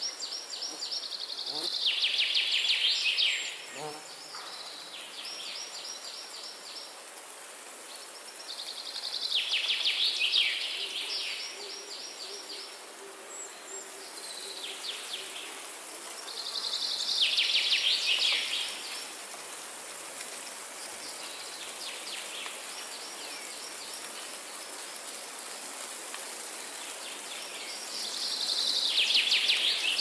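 A songbird singing the same song over and over: a fast trill of notes that falls in pitch over two to three seconds. It is loud four times, with fainter versions of the song in between, over a steady high hiss.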